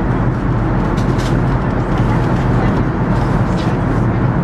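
Loud steady cabin rumble inside an Airbus A380-800, the airliner's engine and airflow noise, with a few faint high rattles.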